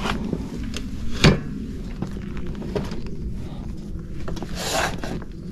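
A folding electric bike being handled: a few clicks and a sharp knock about a second in, then a short scrape near the end.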